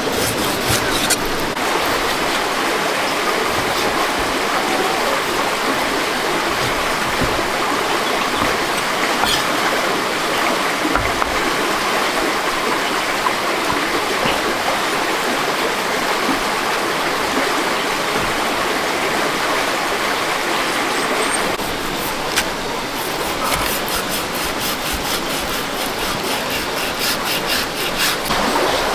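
Flowing water rushing steadily, like a stream, with no tone or rhythm in it; the sound dulls slightly about two-thirds of the way through.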